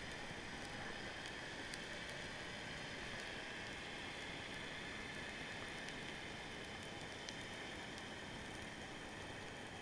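Underwater ambience picked up through a camera housing: a steady hiss with scattered faint clicks and crackles.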